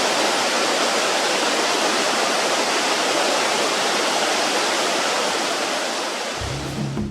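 Steady rush of flowing water with no pitch or rhythm in it. It eases slightly as low music comes in near the end.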